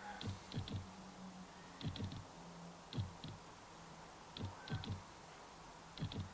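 Light clicks and taps in small groups of two or three, about every second or so, from handling the metal bottom bracket cups while anti-seize paste is worked onto their threads. A faint steady hum sits underneath.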